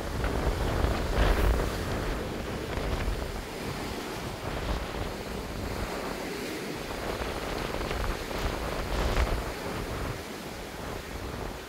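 Wind buffeting the microphone over the rush of the sea below a moving ship, with louder gusts about a second in and again later on.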